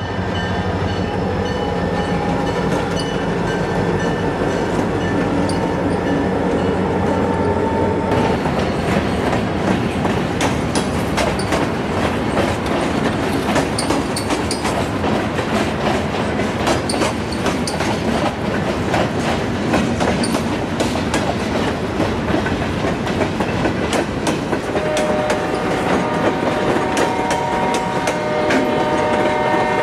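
EMD SD40-2 and GP9 diesel locomotives passing close by with a steady engine hum for the first eight seconds or so. After that comes the clickety-clack of freight car wheels over the rail joints as hopper and tank cars roll past. Near the end a few steady high tones join in.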